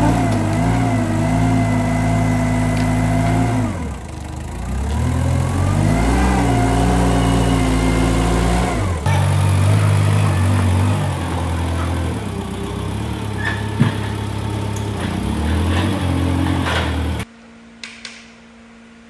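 An engine running and changing speed, its pitch rising and falling, in pieces that change abruptly twice; near the end it cuts off to a much quieter background.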